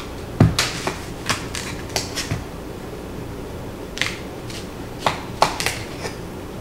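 Kitchen knife cutting through a zucchini and tapping on a wooden cutting board: a run of irregular knocks, pausing for a second or so in the middle before the cuts start again.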